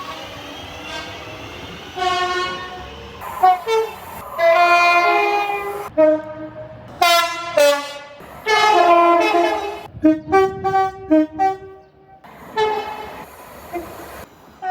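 A run of train horn blasts, short toots and longer blasts in quick succession, several sounding two notes together as a chord, some starting and stopping abruptly. A faint rising whine runs under the first couple of seconds.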